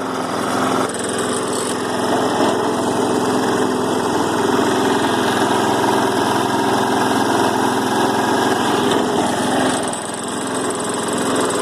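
Small four-stroke push mower engine running steadily, with its oil drained and dirt in its intake, dipping briefly about ten seconds in.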